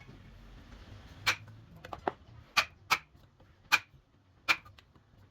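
A series of about six sharp knocks at uneven intervals, hard objects striking each other, with no machine running.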